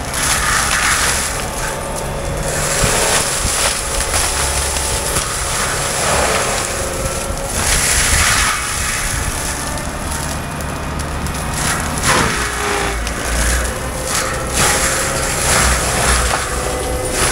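Cat 299D3 compact track loader running hard with its forestry mulcher head, the steady diesel drone overlaid several times by bursts of grinding and shredding as the spinning drum chews through brush.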